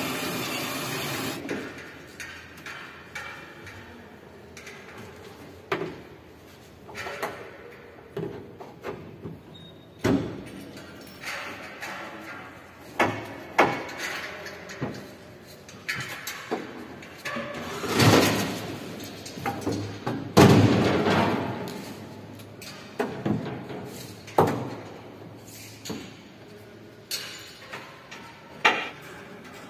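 Irregular clanks, knocks and thuds of hand tools and metal fittings as an amusement ride's cars are taken apart, echoing in a large hall. Two longer, louder bursts come about 18 and 20 seconds in.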